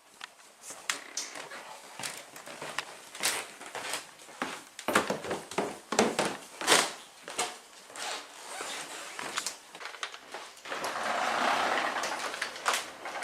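Objects being handled: irregular clicks, rattles and short rustles, then a steadier, louder rustling about eleven seconds in.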